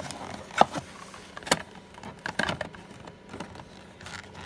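Cardboard packaging being handled: rustling and scraping as a small cardboard box is pulled out of a shipping carton, with a few sharp knocks and taps, the loudest about half a second in.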